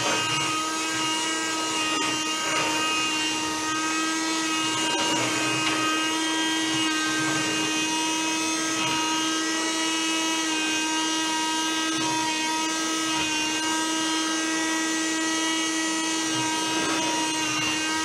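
Miniature Henry desktop vacuum cleaner's small electric motor running with a steady, unchanging whine as its hose nozzle sucks up pencil shavings from a desk.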